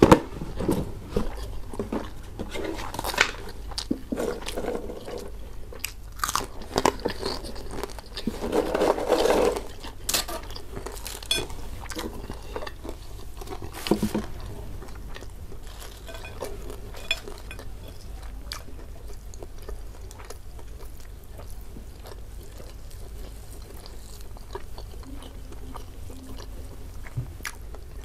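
Close-miked eating sounds: a person chewing a mouthful of food with crunching and biting, busiest in the first half, then quieter chewing after about fifteen seconds.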